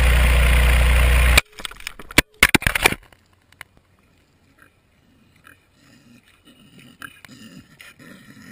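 Steady roar of air rushing past a falling camera's microphone, cutting off suddenly about a second and a half in as the camera hits the ground, followed by several sharp knocks as it tumbles to rest. Then it goes nearly quiet, with faint sniffing from a pig nosing at the camera near the end.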